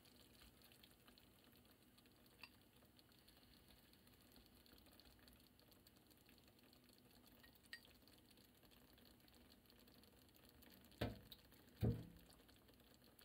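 Faint simmering of a thickened sauce with beaten egg in a frying pan over low heat, with a couple of light clicks. Two dull knocks about a second apart near the end are the loudest sounds.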